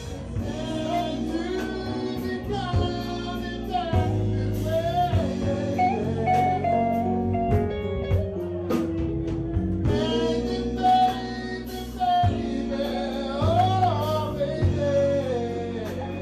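Live band: a man sings into a microphone over guitar, bass and drums.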